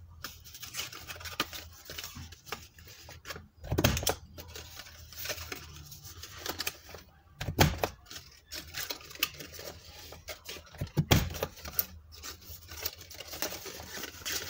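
Envelope punch board's corner-rounder punch pressed down on cardstock: a sharp click three times, about every three to four seconds, with cardstock rustling as it is turned and placed between punches.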